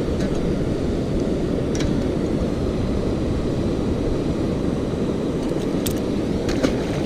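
Wind buffeting the microphone, a steady low rumble, with a few faint clicks about two seconds in and again near the end.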